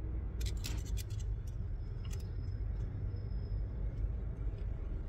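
Light metal clicks and taps of a spanner and screwdriver working a fuel-line fitting on a single-cylinder diesel engine that is not running, over a steady low background rumble. The fitting is being opened to check for an airlock and see whether fuel reaches it.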